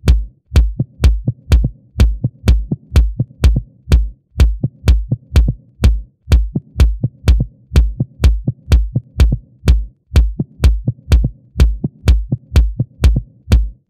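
Electronic dance music driven by a heavy drum-machine kick drum, beating steadily about twice a second with little else over it.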